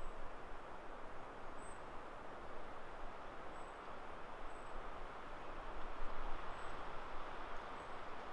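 Steady rushing background of a spruce forest, with a few faint, high, short peeps from a small bird every second or two.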